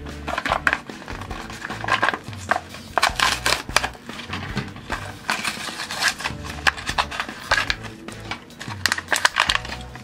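A Hot Wheels blister pack being torn open: the cardboard backing and plastic bubble rip and rustle in a run of short tears, as the plastic is peeled off a die-cast car. Background music plays underneath.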